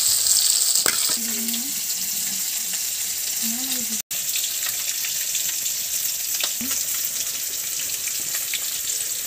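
Fish pieces shallow-frying in hot oil in a kadai, a steady crackling sizzle that is loudest in the first second. The sound drops out for an instant about four seconds in.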